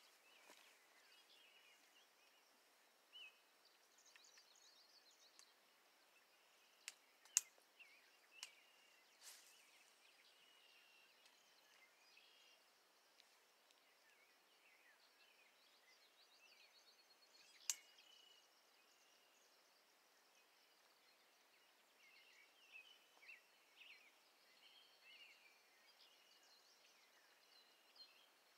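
Near silence outdoors: faint birds chirping, with a cluster of sharp clicks about seven to nine seconds in and one more about ten seconds later.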